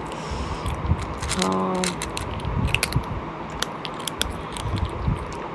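Close-up eating sounds: wet chewing and lip-smacking clicks while sheep-head meat is eaten, with a short hummed voice note about a second and a half in.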